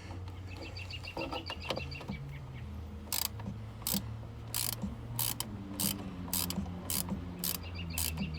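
Hand ratchet wrench clicking as a fastener is loosened. A quick run of fine ticks comes near the start, then from about three seconds in a steady series of clicking strokes, about two a second.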